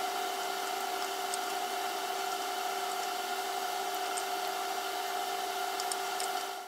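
A steady pitched hum with a whine above it, like a running motor or appliance, and a few faint light ticks. It cuts off suddenly at the very end.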